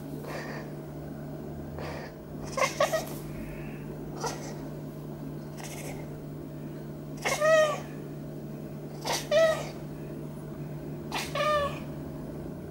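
Maine Coon cat meowing: a few short, softer calls, then three loud drawn-out meows about two seconds apart in the second half, each rising and then falling in pitch.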